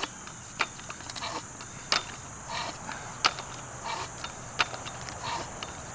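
Bicycle pump being worked in slow, repeated strokes, with a sharp click about every second and a half, pressurizing a plastic soda bottle through a valve stem to about 100 psi.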